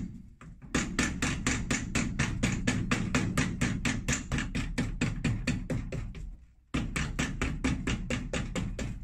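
Cobbler's hammer tapping rapidly on a shoe's new leather sole on a last, about five to six blows a second, bedding down the glued second layer of a double leather sole. Two short breaks, one just after the start and one about six and a half seconds in.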